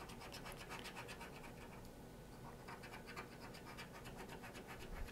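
Faint, rapid scraping of a scratch-off lottery ticket's coating being rubbed off in quick, even strokes.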